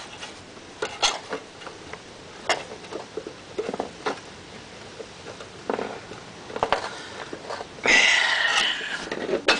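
Scattered small clicks and taps of hands working on the lawn mower's improvised cable fitting, then a louder rasping scrape lasting about a second near the end.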